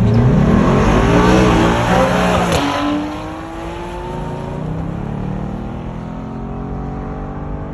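A tuned car's engine revving hard as it accelerates, its pitch climbing, with a sharp crack about two and a half seconds in. Then it drops away and a quieter engine climbs steadily in pitch again.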